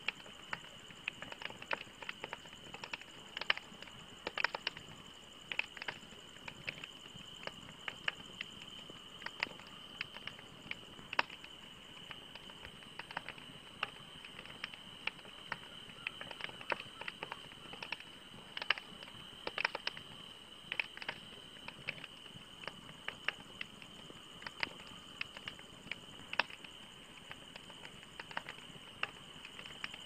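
Wood campfire burning, crackling with irregular sharp pops and snaps several times a second over a steady soft hiss.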